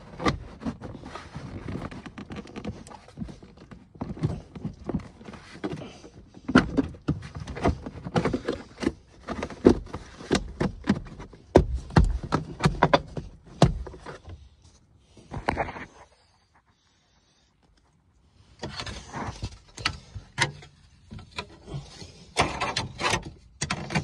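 Irregular knocking, clicking and rustling from hands working car interior trim and seatbelt hardware, with a break of about two seconds two-thirds of the way through.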